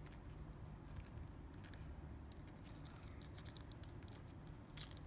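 Faint crinkling of a clear plastic bag and light clicks as a plastic figure is handled, with a few crackles about three and a half seconds in and again near the end, over a low steady hum.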